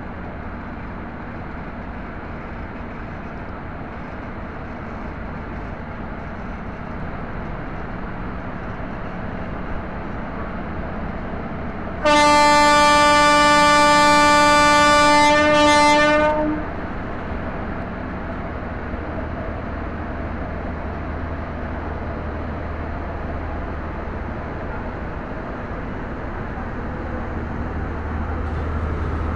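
Train horn sounding one long, steady blast of about four and a half seconds near the middle, over a steady rumble of a running train.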